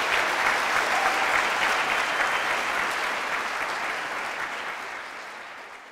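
Audience applause: dense clapping from a large crowd, slowly fading over the last few seconds.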